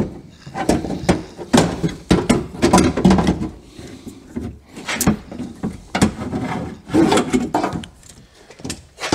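Metal power window regulator assembly, with its motor attached, knocking and scraping against the steel inner door shell as it is worked out through the door opening. Irregular knocks and rattles come several times a second, with short gaps between.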